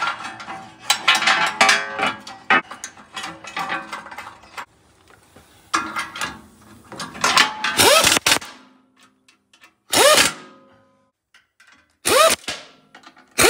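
Metal transfer-case skid plate being handled and pushed up into place with clanks and scraping, then a cordless ratchet running the skid-plate bolts in, in three short bursts about two seconds apart, each with a rising whine.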